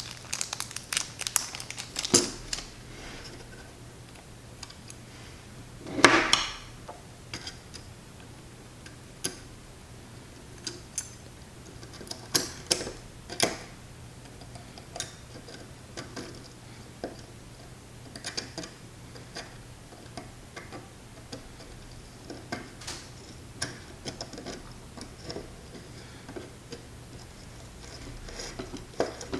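Small screws and a screwdriver clicking and ticking against a carbon-fibre drone frame as flat-head screws are driven into the top plate, in light irregular clicks, with a louder clatter about six seconds in.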